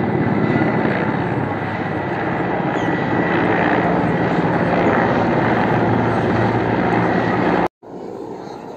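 Large helicopter flying low overhead, its rotors and engines making a loud, steady noise. The sound cuts off suddenly near the end and gives way to a much quieter background.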